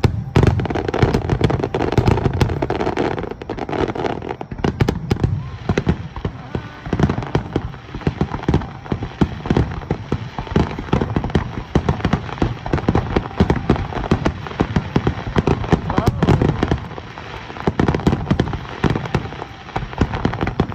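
Aerial fireworks display: a dense barrage of shell bursts, many bangs a second in quick succession, easing slightly near the end.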